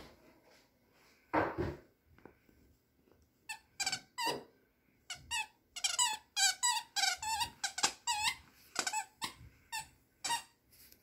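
Squeaker in a Kong Cozie plush moose toy squeaking over and over as a poodle puppy chomps on it. The short, bending squeaks come in quick runs from about three seconds in.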